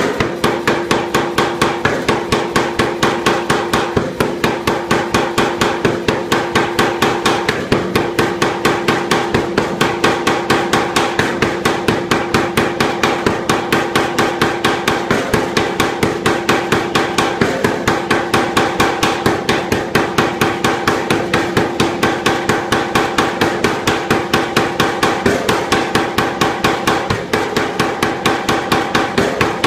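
A 25 kg Anyang air forging hammer pounding a red-hot steel bar in rapid, evenly spaced blows, several a second, with a metallic ringing under each strike.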